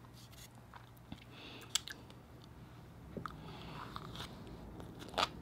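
Faint close-up eating sounds: a few scattered soft mouth clicks and smacks as a spoonful of rice with abalone and fish roe is taken and chewed.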